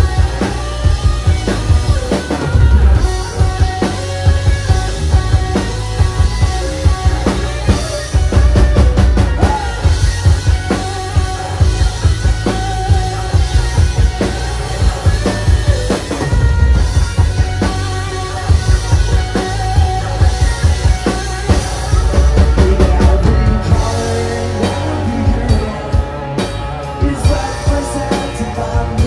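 Live rock band playing with a full drum kit, electric guitar and bass guitar, the drums keeping a steady beat; a vocalist comes in on the microphone near the end.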